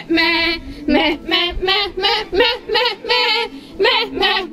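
A high voice singing a song, its notes wavering with vibrato.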